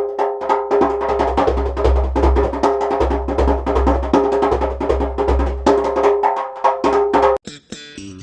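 Djembe hand drum played with bare hands in fast strokes, deep low tones under sharp slaps. It cuts off abruptly a little after seven seconds in, and quieter guitar-and-bass music takes over.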